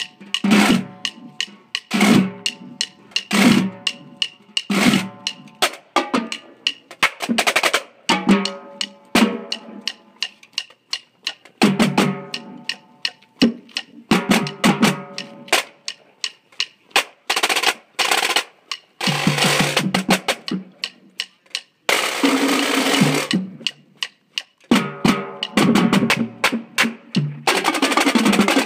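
Marching drumline of snare drums, tenor drums and bass drums playing an exercise together in quick, even strokes, with several long sustained rolls in the last third.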